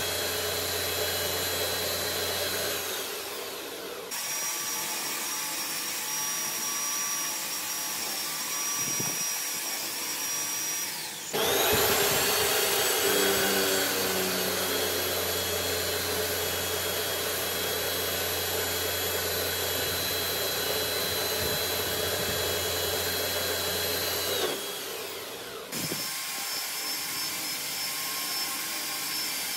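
Milling spindle on a lathe running, with an end mill cutting spiral flutes into a steel tap blank: a steady motor whine. It winds down about three seconds in, starts up again with a rising whine about 11 seconds in, runs steadily, and winds down again near 25 seconds.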